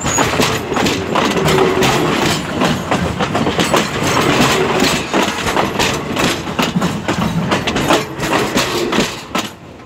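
Passenger train heard from underneath while it runs: steel wheels rolling and rattling over the rails, with a rapid, irregular run of clacks and knocks from the running gear. The noise dips briefly near the end.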